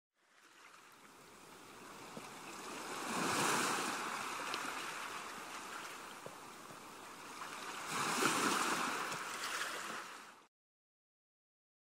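Ocean waves washing in, an added surf sound effect that fades in, swells twice and cuts off suddenly near the end.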